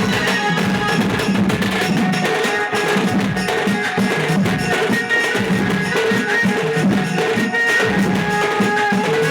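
Dance song playing loudly, with drums and percussion under a melody.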